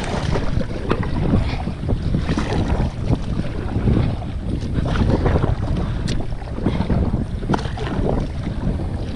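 Kayak paddle strokes, the blades dipping and splashing in the water at an uneven rhythm, with water washing along a sit-on-top kayak's hull. Steady wind buffets the microphone underneath.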